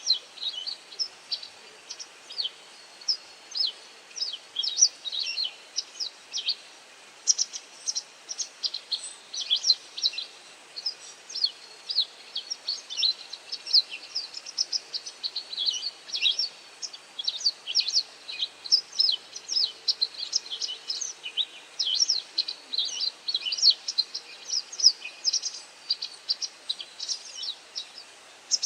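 White wagtail giving a dense run of short, sharp, high call notes, several a second, while it forages.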